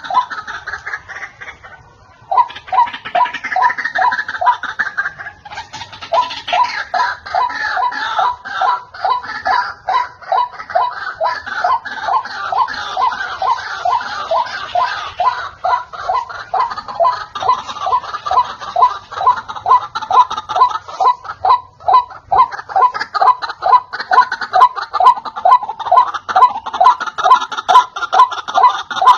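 White-breasted waterhen calling: a long, loud run of rapid, repeated croaking "ruak-ruak" notes with a cackling, laugh-like quality, broken by a brief pause about two seconds in.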